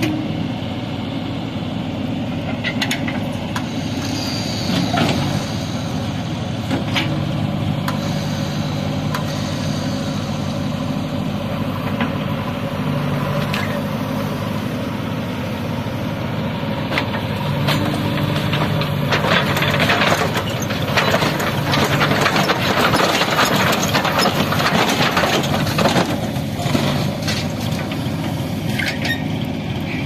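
Diesel engine of a JCB 3DX backhoe loader running while it works, louder and busier from about 17 to 26 seconds in, with scattered metal clanks.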